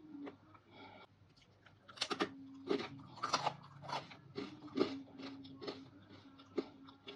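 Close-miked crunchy chewing of dried fruit or vegetables: a quick run of crisp crackles that starts about two seconds in, loudest in the middle, then thinning out.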